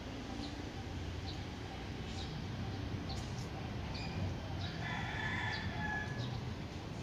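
Outdoor bird calls: scattered short, high chirps, and one longer held call lasting about a second and a half, about five seconds in.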